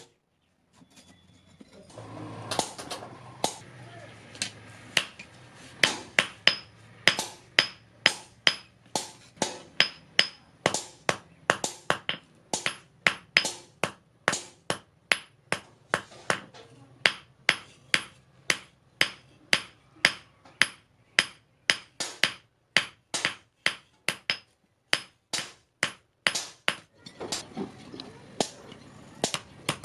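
Hand hammer forging steel on an anvil: a long run of steady blows, about two a second, each with a bright metallic ring, pausing briefly near the end before resuming.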